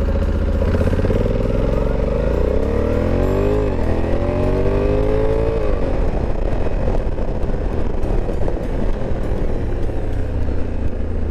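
Honda Africa Twin 1100's parallel-twin engine at full throttle, pulling hard from a standstill. Its pitch climbs, then drops twice in the first six seconds as the automatic dual-clutch gearbox changes up by itself. After that it runs more steadily as the bike slows.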